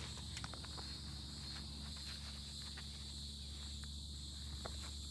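Quiet outdoor ambience: a steady high insect drone, like crickets, with a few faint clicks and footsteps.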